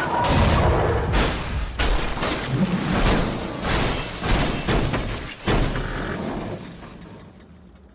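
A run of crashing and banging sound effects, sharp impacts about every half second to a second over a low rumble, dying away over the last couple of seconds.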